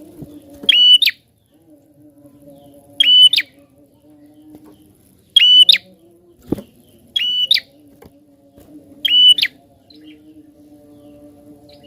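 A prinia (prenjak) singing loud, shrill chirping phrases, each about half a second long, repeated five times at roughly two-second intervals.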